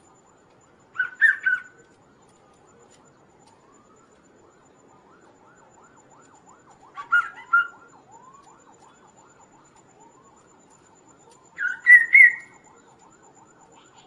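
Chestnut-capped babbler (kaso-kaso) singing: three short, loud bursts of song, each a quick cluster of notes, a few seconds apart.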